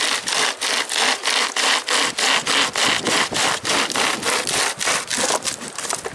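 Pocket hand chain saw pulled back and forth through a dead log, its chain teeth rasping through the wood in fast, even strokes, about three or four a second, easing off near the end.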